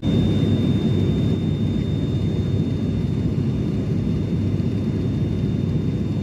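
Steady engine and propeller noise of a high-wing turboprop airliner, heard inside the cabin in flight: a dense low rumble with a thin steady high tone over it.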